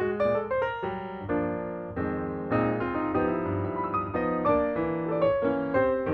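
Piano music: a melody of struck notes over lower chords.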